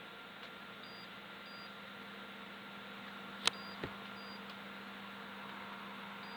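Microwave oven running off a 12 V to 220 V power inverter: a steady hum with fan noise and a thin high whine. Faint short high beeps come in pairs every few seconds, and there is a sharp click about three and a half seconds in, followed by a smaller knock.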